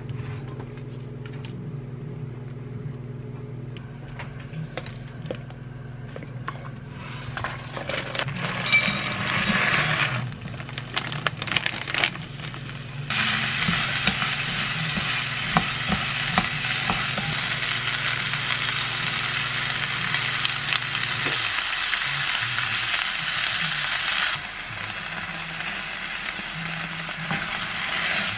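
Cauliflower fried rice sizzling in a hot frying pan while a spatula stirs it. After some clicks and handling noises, the sizzle comes in loudly about halfway through, then turns quieter near the end as tomato purée goes into the pan.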